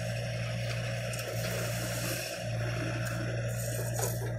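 John Deere 60G compact excavator's diesel engine running steadily as the bucket digs into a dirt pile, with a brief dip in the engine sound about two seconds in and a couple of sharp knocks near the end.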